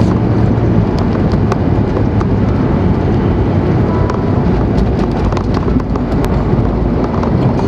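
Ski-Doo 500cc snowmobile running at speed, heard from on board: a dense, steady rumble of engine and track, with wind buffeting the microphone and scattered sharp clicks and knocks.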